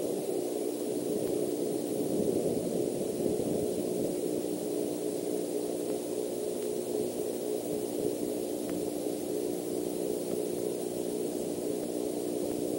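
Steady hiss with a low, even hum underneath: the background noise of an outdoor nest-camera microphone at night.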